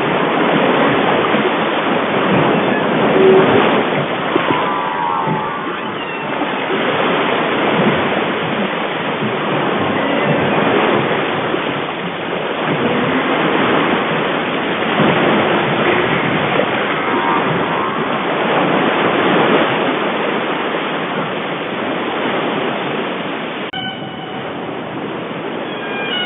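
Ocean waves and surf: a continuous rushing that swells and eases.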